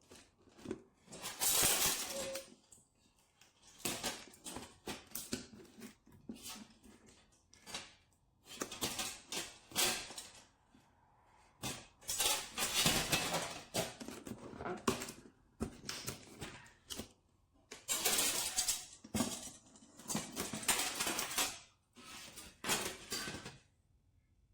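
Cardboard and plastic packaging being handled and opened: irregular bursts of rustling, crinkling and tearing, with short pauses between them.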